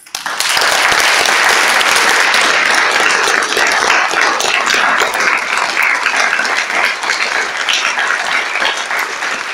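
Audience applauding, starting suddenly and going on steadily, easing off slightly toward the end.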